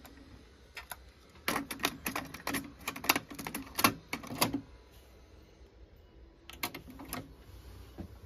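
Plastic clicks and clacks of a cassette being seated in a Pioneer CT-S605 cassette deck's door and the door pushed shut, a run of sharp clicks over about three seconds. About two seconds later a short group of clicks comes as the deck's two-motor transport engages to play.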